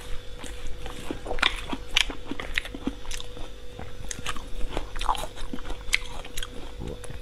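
Close-miked eating: a string of crisp crunches and chewing as a mouthful of julienned pear strips and raw beef is bitten and chewed.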